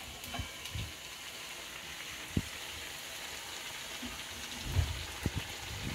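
Hot oil sizzling steadily around stuffed karchikai pastries deep-frying in an iron kadai. A few light knocks sound over it, the sharpest about two seconds in and a couple more near the end.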